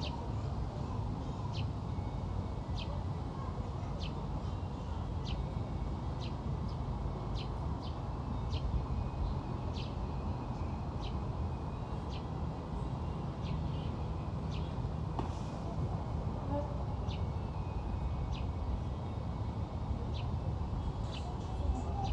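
A bird giving short, high chirps, repeated about once a second, over a steady low outdoor rumble.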